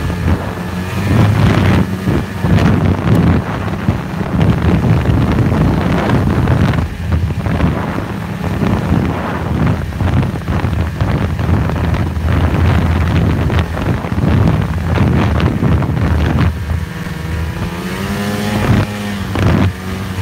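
Snowmobile engine running under way along a trail, with wind buffeting the microphone. Near the end the engine note swings up and back down.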